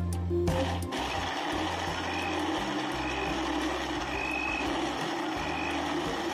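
Countertop blender starting up about a second in and then running steadily at speed, crushing ice and fruit into a blended frappé drink.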